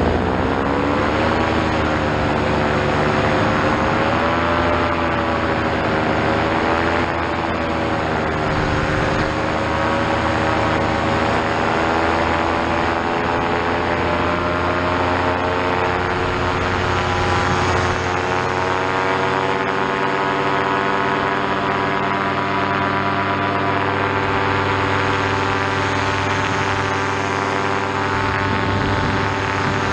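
Paramotor trike's Vittorazi Moster two-stroke engine and propeller running steadily in flight. The pitch wavers for the first several seconds with small throttle changes, then holds steadier and slowly rises.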